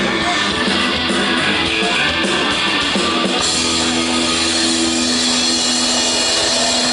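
Rock music with loud electric guitars. About three and a half seconds in, the band settles into a long held chord.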